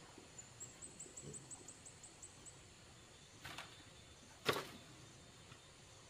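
A quick, faint series of about ten high chirps, then a small knock and a sharp, louder knock about four and a half seconds in.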